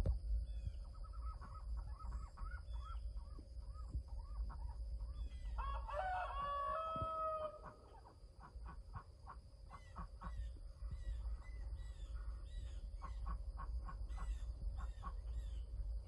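Rooster crowing once, about six seconds in, ending on a long held note. Short repeated bird calls and chirps come before and after the crow.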